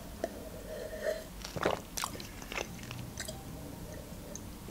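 A person drinking from a glass close to the microphone: a few swallowing gulps and wet mouth clicks.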